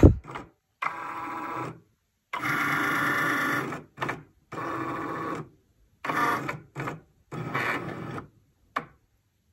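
Cricut Maker cutting machine scanning the black registration lines of a printed sticker sheet to locate where to cut: its carriage and mat-feed motors whir in about eight short runs, each broken off by a brief pause.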